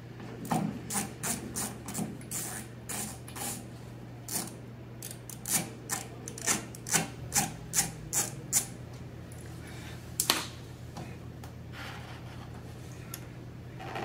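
Screwdriver backing out the small screws of a Jaguar E-Type's chrome headlight-cover trim ring: a run of short scraping clicks, about two a second, then one sharper click about ten seconds in.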